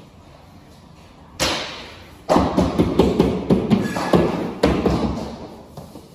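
Laminate plank on a wall being thumped by hand to seat it. There is one sharp knock about a second in, then a fast run of thumps for about three seconds.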